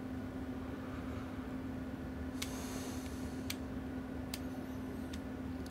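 Steady electrical hum from a CB amplifier test bench with its amplifier and power supply switched on. A few faint ticks come about halfway through, with a brief soft hiss under the first of them.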